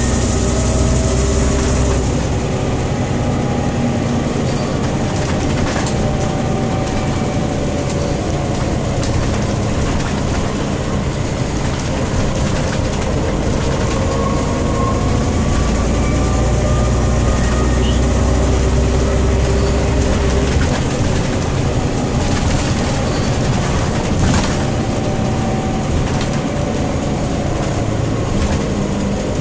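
Inside a 2001 Scania OmniCity city bus under way: its Scania DC9 nine-litre five-cylinder diesel and ZF 4HP 502 automatic gearbox running, the tones repeatedly rising and falling in pitch as the bus pulls away, shifts and slows. A deep rumble swells twice, and a few short knocks come from the body.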